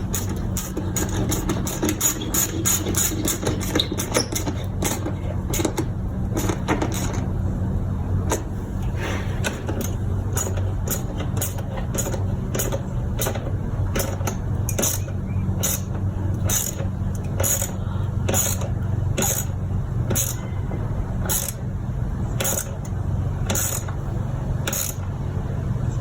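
Sharp clicks and knocks of hands refitting plastic engine-bay parts, irregular at first and later about one a second, over a steady low hum.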